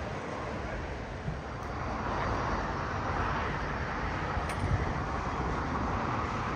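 Jet engines of a twin-engine airliner running as it rolls along the runway: a steady rush with a low rumble underneath.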